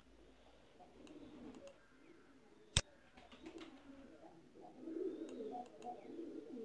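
A single sharp computer-mouse click a little under three seconds in, over a faint, uneven background of low bird calls that grows louder in the last second or two.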